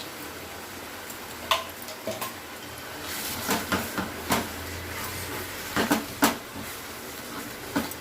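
Spoon knocking and scraping against a cooking pan while the tomato pickle is stirred, in scattered sharp clicks, with a denser run of knocks a little past halfway.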